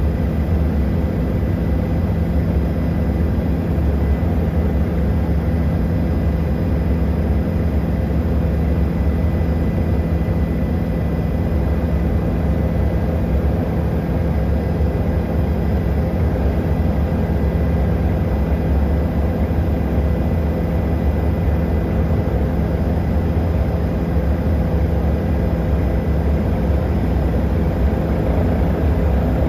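Helicopter in flight: a steady drone of engine and rotor, heaviest in the low hum, with a thin high whine on top.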